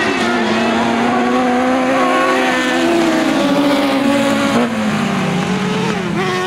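Several open-wheel autocross buggies racing on a dirt track, their engines revving high over one another. The pitches rise and fall as the cars accelerate and back off through the corner, with a brief drop about four and a half seconds in.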